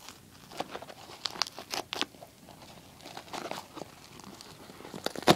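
Paper mailing envelope being pulled and torn open by hand: irregular crinkling and tearing of paper, with a louder rip near the end.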